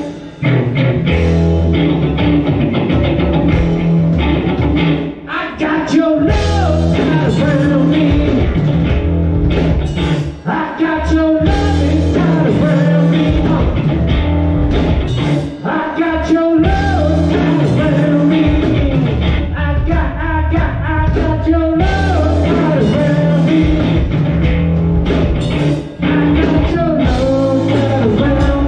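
Live rock band playing an upbeat song with electric guitars and a drum kit, a singer coming in and out in short phrases over the music.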